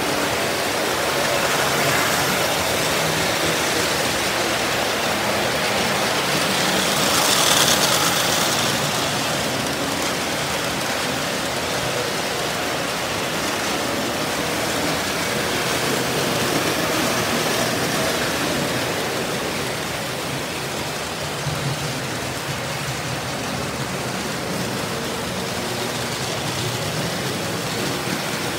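Several early-1950s Lionel O-gauge trains running at once: a steady rumble and whir of metal wheels on three-rail track and electric motors, swelling briefly about seven seconds in.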